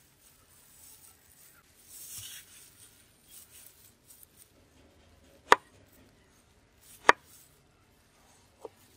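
A knife slicing a tomato on a wooden cutting board. The blade strikes the board twice with sharp knocks about a second and a half apart, and once more, more faintly, near the end.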